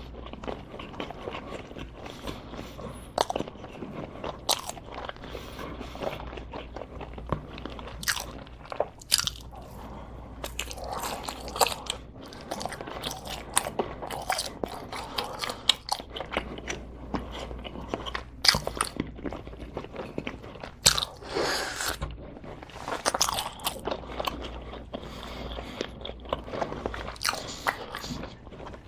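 Close-up mukbang eating: biting and chewing crunchy food, with many irregular sharp crunches.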